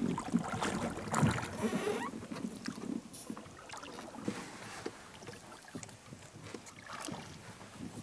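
Canoe being paddled: paddle strokes splashing and dripping in the water, with scattered light knocks on the hull, busiest in the first couple of seconds.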